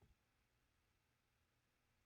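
Near silence: room tone, with one faint low knock at the very start.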